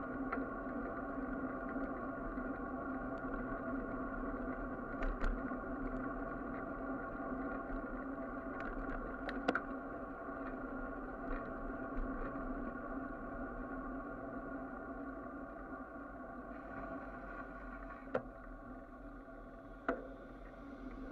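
Ride noise from a bicycle-mounted camera: a steady hum of several held tones with a few sharp clicks scattered through. A higher hiss joins near the end as the bike comes alongside traffic and a city bus.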